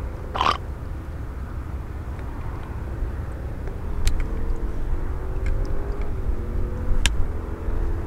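A steady engine hum, faint and slightly gliding in pitch, under a low rumble. A short sharp sound comes about half a second in, and two clicks later on.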